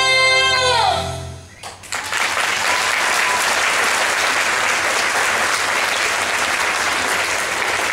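The song's final held note slides down and stops about a second in. About two seconds in, audience applause starts and carries on steadily.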